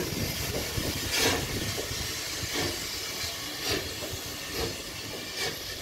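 DB class 23 steam locomotive moving off slowly: slow exhaust chuffs about a second apart, with steam hissing at the cylinders and a low running rumble.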